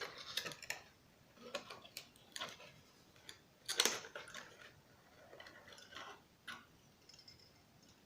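Irregular small clicks, taps and brief rustles of computer parts being handled, with a louder clatter about four seconds in.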